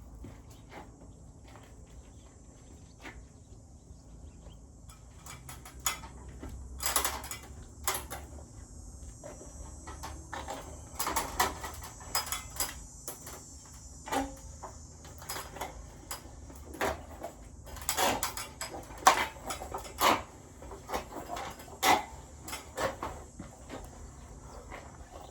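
Irregular knocks, taps and clatter from hands-on roof carpentry work, sparse at first and then frequent from about six seconds in, over a faint steady high hiss.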